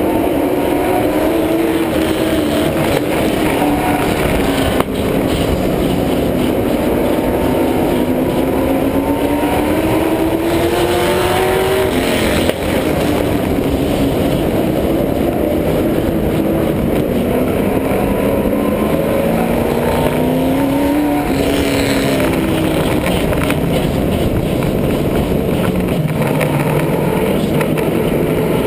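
Stock car's engine heard from on board while racing. The pitch climbs steadily under acceleration and then falls off sharply as the driver lifts, twice, about twelve and twenty-one seconds in, over a steady rush of road and wind noise.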